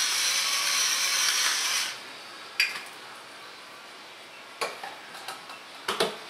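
Pepper mill grinding black peppercorns, a steady grinding noise that stops about two seconds in. It is followed by a few light clicks and knocks of utensils and containers being handled.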